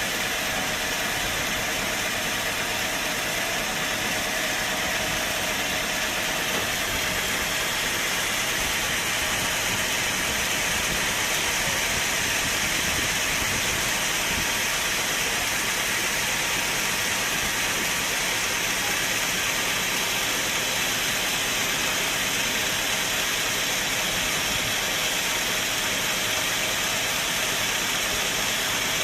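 Sawmill machinery running steadily, a constant mechanical hiss and hum with no change in pitch or level.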